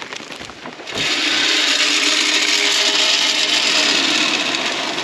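Wood pellets pouring from a woven sack into a pellet stove's metal hopper: a steady rushing rattle of many small pellets that starts about a second in, after some rustling of the sack.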